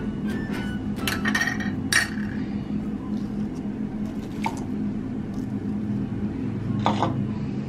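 A metal spoon clinking and scraping against an aluminium pot and a serving bowl as diced fruit is scooped into the salad, with a handful of sharp clinks, the loudest about two seconds in and another near the end.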